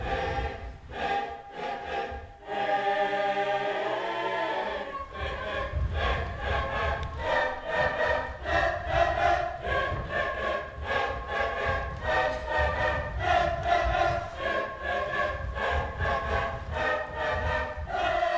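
An amateur choir singing in close harmony without accompaniment. About two and a half seconds in the voices hold a chord, and from about five seconds in they break into short, rhythmically repeated notes.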